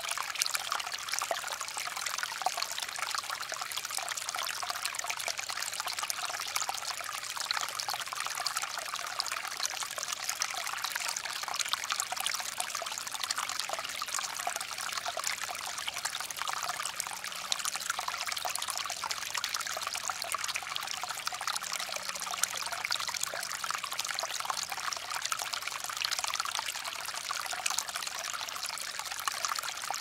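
A small stream running steadily, with a close, even trickling and babbling of water.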